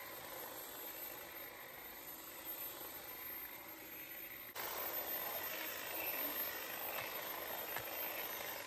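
Corded electric hedge trimmer running faintly and steadily, a little louder from about halfway through.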